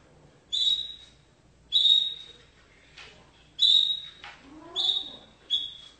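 Canary giving a series of short, loud, high-pitched notes, five of them at uneven intervals, each starting sharply and fading within about half a second.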